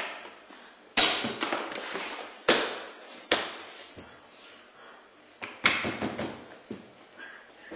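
A series of sharp knocks and thumps at uneven intervals, each dying away quickly: the first about a second in, more around two and a half and three and a half seconds, then a quick run of three or four together near the end.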